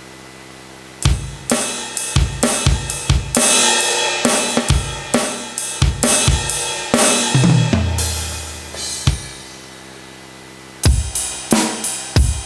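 Carlsbro OKTO A electronic percussion pad playing its drum-kit sounds: a run of drum and cymbal hits starting about a second in, a pause with only a low hum under it, then a new run of hits near the end.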